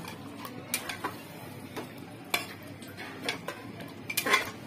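A spoon stirring chicken and yogurt in a metal pressure cooker: irregular wet scrapes and knocks against the pot, the loudest near the end, over a soft steady simmer.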